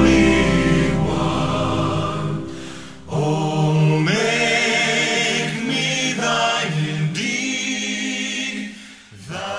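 Music of voices singing slow, long-held chords, changing chord a few times and dying away near the end.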